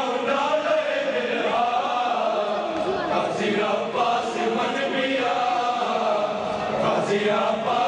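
A crowd of men chanting a noha (Shia lament) together at a matam gathering, many voices overlapping in a steady mass, with a few sharp slaps of hands striking chests cutting through near the middle and near the end.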